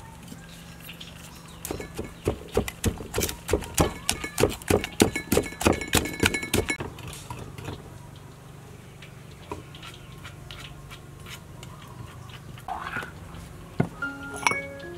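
Wooden pestle pounding in a mortar, mashing sauce ingredients: a quick, rhythmic run of thuds for about five seconds, then a few single knocks. Light mallet-like music comes in near the end.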